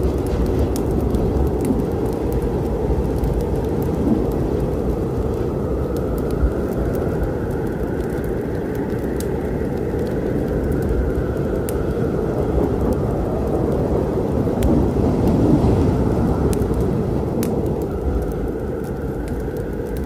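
Thunderstorm rain with a low rumble of thunder that swells about three-quarters of the way in. Scattered small, sharp crackles of a wood fire run through it.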